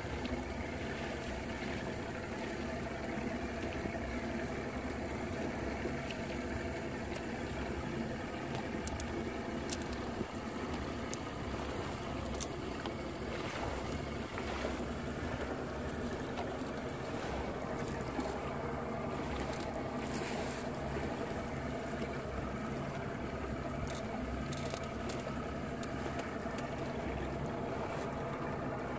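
Small fishing boat under way on choppy water. Its motor runs steadily under wind and water rushing past the hull, with a few light knocks scattered through.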